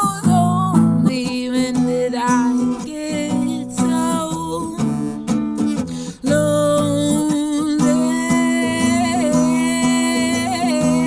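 Acoustic guitar strummed under a sung vocal melody, with held notes that waver in vibrato in the second half.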